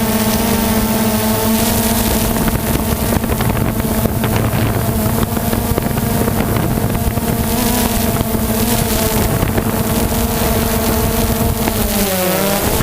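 Aircraft engine running steadily at a constant pitch, with wind on the microphone; near the end its pitch drops and wavers.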